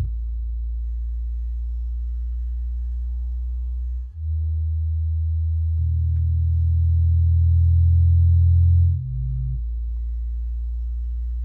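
Electronic drone music of deep, steady low tones that step to a new pitch about four seconds in and again near nine seconds, swelling in loudness before the second change, with a faint thin high whine above.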